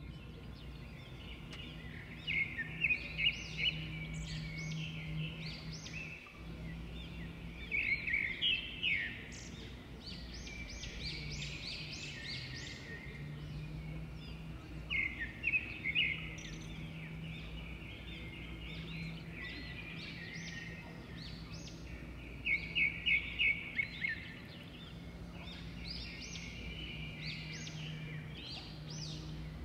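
Songbirds singing outdoors: bright chirping trills come in clusters every several seconds, with a steady low hum underneath throughout.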